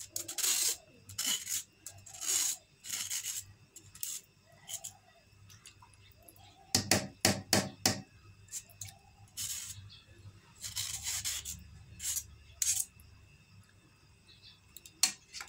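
A metal spoon scraping soaked sago pearls off a stainless-steel mesh strainer, in irregular rasping strokes, with a quick run of sharp knocks a little past halfway.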